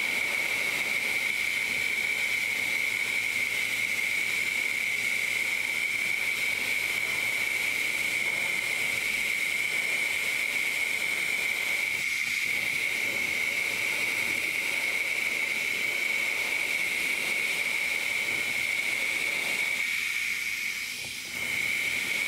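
Airbrush hissing steadily as it sprays thinned paint in light coats at a low paint flow, with a steady high tone running through the hiss. The air dips briefly near the end.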